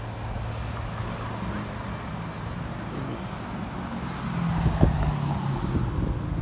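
Street traffic dominated by an articulated city bus's diesel engine running as it moves along the road, a steady low hum whose pitch sits higher from about four seconds in. A single short knock comes about five seconds in.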